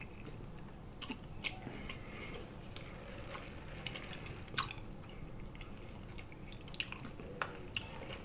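Faint close-miked chewing and lip smacking of a person eating, with scattered short, soft mouth clicks.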